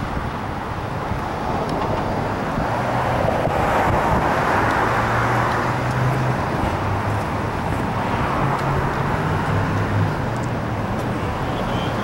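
Road traffic and car engines running steadily, with the noise of a vehicle swelling and fading about three to six seconds in.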